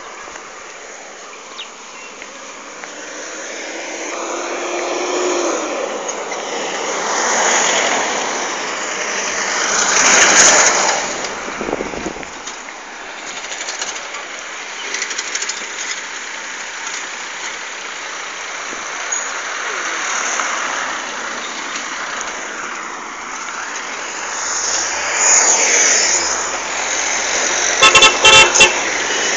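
Road and traffic noise heard from a moving vehicle, swelling twice as vehicles pass. Near the end a vehicle horn gives several quick toots, the loudest sound.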